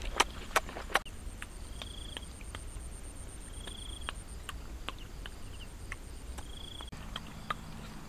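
A few sharp crunching clicks in the first second as grapes are chewed, then quiet outdoor ambience: a faint high, even trill in two long stretches and three short high chirps, with a low hum coming in near the end.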